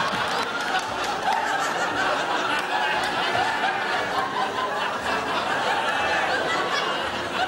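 A studio audience laughing, steady and sustained, from a large crowd.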